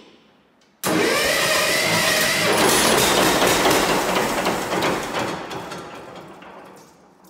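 1958 John Deere 720 two-cylinder diesel tractor being started. A loud burst of engine noise comes in suddenly about a second in, holds for a few seconds, then fades away. It is a poor start because air was left in the fuel system after too short a bleed.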